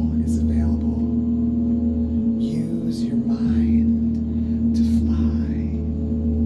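A gong sounding in a long sustained drone, many steady tones held together with a deep low hum beneath. A few brief higher shimmering sounds rise over the drone about two and a half seconds in and again near five seconds.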